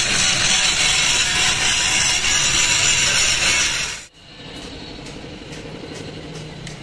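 An angle grinder's abrasive cut-off disc cutting through a steel truck tie rod: a loud, steady grinding hiss that stops abruptly about four seconds in. It is followed by faint workshop background with a few light taps.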